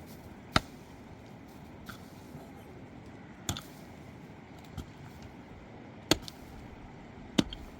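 Sharp knocks, five in all, spaced roughly a second to three seconds apart, over a steady background hiss.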